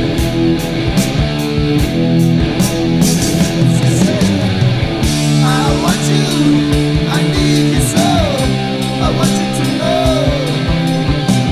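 Rock band recording: electric guitars and bass holding chords over a steady drum beat. About five seconds in, a melody line joins that slides up and down in pitch.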